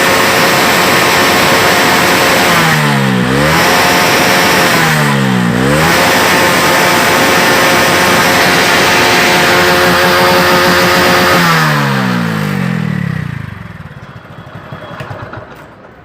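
Hero Super Splendor's single-cylinder four-stroke engine running at raised revs. Twice the revs drop briefly and pick up again. About three-quarters of the way through, the revs fall away and the engine sound dies down.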